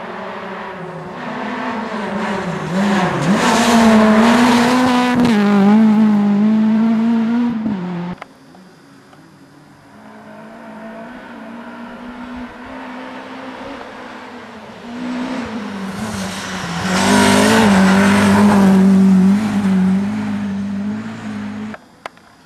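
Two rally cars in turn at high revs on a snowy forest stage, engine pitch holding high with small dips as they power through. Each pass swells over several seconds and then cuts off abruptly.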